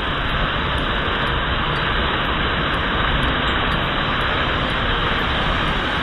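Waterfall cascading over a sloping rock slab close by: a steady, dense rush of falling water.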